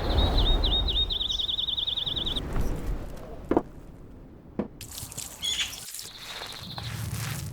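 Layered sound-effects ambience: a bird's rapid, even trill over a low rumble for the first two seconds or so, then two brief falling sweeps and a short chirp, with a steady low hum coming in near the end.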